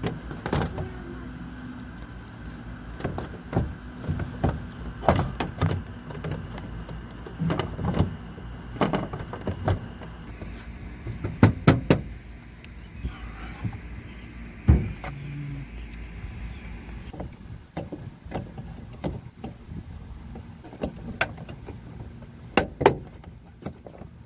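Scattered, irregular clicks and knocks of hand tools and plastic trim being handled inside a car while speaker screws are tightened down, over a low steady hum that stops about two-thirds of the way through.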